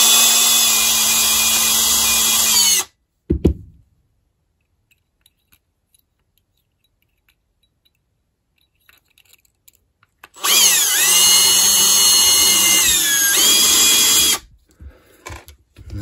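Power drill with a small bit drilling into the top pin chamber of an old brass Yale mortise cylinder, freehand, to drill out a seized top pin. It runs twice, for about three and about four seconds, with a long pause between. Near the end of the second run the motor's whine dips in pitch as the bit bites.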